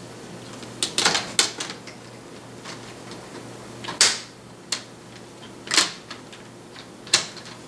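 Plastic screen bezel of an Asus K53TA laptop being fitted back onto the lid, giving a string of sharp plastic clicks and taps, about seven in all, spaced irregularly.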